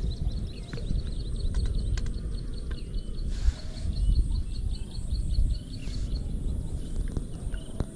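Wind rumbling on the microphone, with a bird's high chirping repeated rapidly, about five chirps a second, and a few faint clicks.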